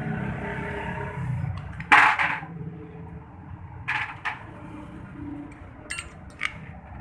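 Metal parts of a motorcycle clutch assembly clanking and clicking as it is taken apart by hand: one loud, sharp, ringing clank about two seconds in, then lighter clicks near four seconds and a few more around six. A low steady rumble fades out over the first two seconds.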